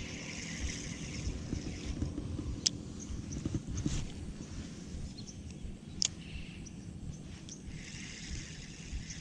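Birds chirping over a low rumble of wind on the microphone, with a few sharp clicks about a third, half and two-thirds of the way through.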